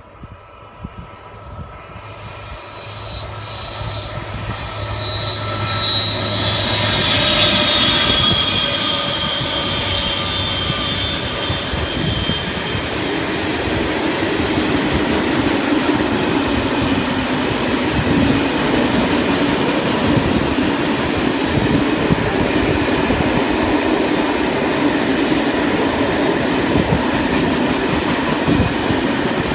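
Freight train approaching and passing close by. Its rumble grows over the first several seconds to a peak as the locomotive goes past, with high tones dropping in pitch. Then a long string of covered freight wagons rolls by with a steady, loud rumble and wheel noise on the rails.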